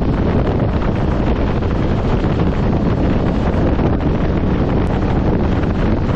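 Loud, steady wind rushing over the microphone of an Aprilia Tuareg 660 motorcycle riding at a steady road speed, with the bike's engine running underneath.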